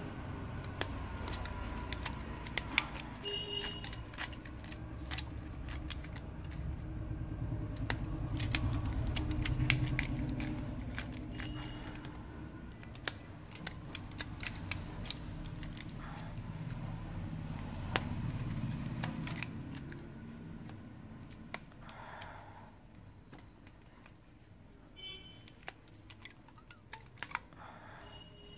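Scattered light clicks and taps of a Redmi 3S smartphone being handled and turned over in the hands, over a low steady background rumble.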